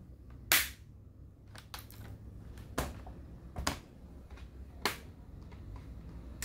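Plastic retaining clips of a Toshiba Satellite C660 laptop's screen bezel snapping loose as the bezel is pried off by hand: several sharp clicks at uneven intervals, the loudest about half a second in.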